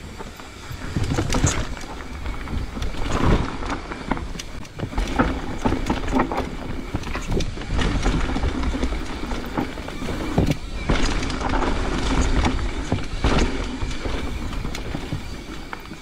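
Mountain bike riding downhill on a dirt forest trail: knobby tyres rolling and crunching over dirt, roots and rocks, and the bike rattling with sharp knocks at each bump, over a steady low rumble of wind on the microphone.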